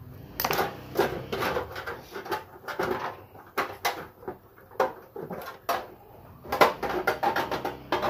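Irregular clattering, clicks and knocks as the front cover of a Paloma gas water heater is handled, gripped and pulled off the unit.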